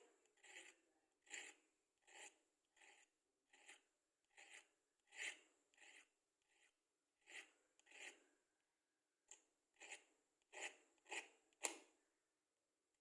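Matchsticks scratched in short, quiet rasping strokes, about one and a half a second. A sharper, louder scrape comes just before the end, followed by a pause.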